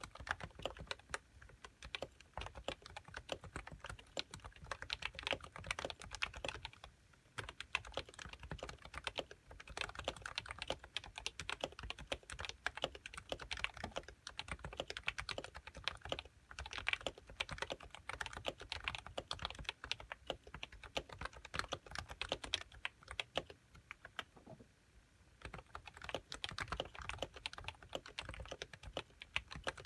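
Typing on a Happy Hacking Keyboard Professional 1 with 45 g uniform Topre electrostatic-capacitive rubber-dome switches and HiPro keycaps. Keystrokes come in a fast, steady stream, with short pauses about a quarter of the way in and again past three quarters.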